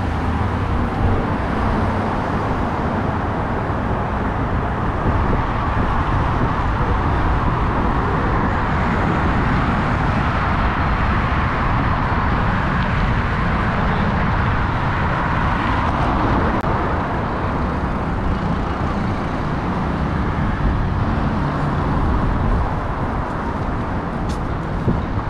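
City traffic noise: cars going by steadily on the avenue, growing louder for several seconds around the middle.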